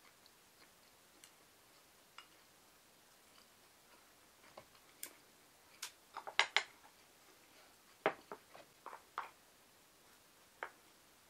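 Ceramic tableware and wooden chopsticks being handled: light clicks, then a quick cluster of sharp clinks and knocks about six seconds in and another about eight to nine seconds in, with a single knock near the end.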